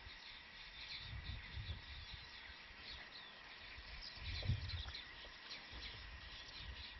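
Faint chirping of birds and insects, with irregular low rumbles underneath, the strongest about four and a half seconds in.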